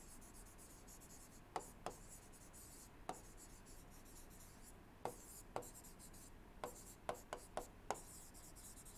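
Faint scratching of a stylus writing on a tablet screen, in short strokes, with about ten light taps of the pen tip, several in quick succession in the second half.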